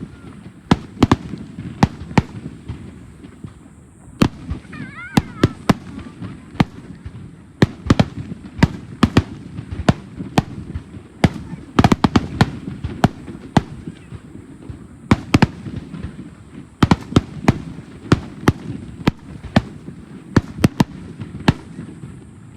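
Fireworks going off: a dense, irregular series of sharp cracks and bangs, several a second, over a continuous low rumble.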